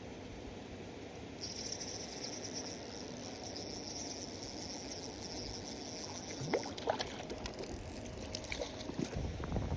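Water trickling and splashing. From about a second and a half in, a high, fine whirr runs until just past halfway. It is followed by a few quick splashy sweeps and clicks, and a low rumble near the end.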